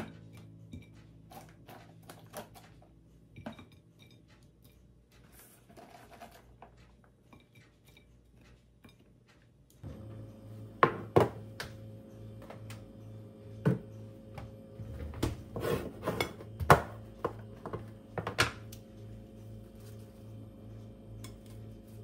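Dishes and kitchen utensils clinking and knocking against each other, a few light clicks at first, then a run of louder clatters about halfway through.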